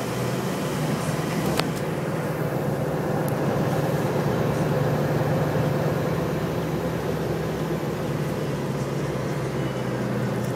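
Steady engine and road noise heard from inside a moving bus, a low even drone with one brief click about a second and a half in.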